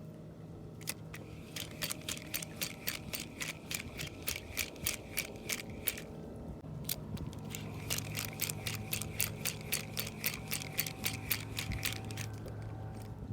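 Fishing reel clicking evenly as it is cranked, about four clicks a second, with a short pause about six seconds in before the clicking resumes. A steady low hum runs underneath.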